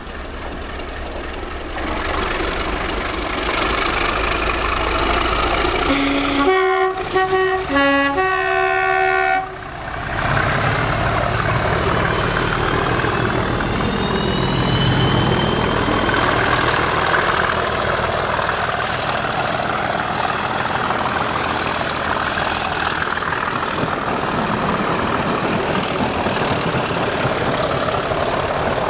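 Class 37 diesel locomotive's two-tone horn sounded about six seconds in, low then high, twice, the last high note held longest. The locomotive's English Electric diesel engine and wheels then go by close and loud, followed by the trailing coach's rumble on the rails.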